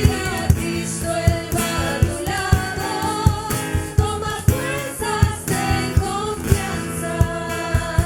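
A song with singing over a band, with a steady drum beat of about two beats a second.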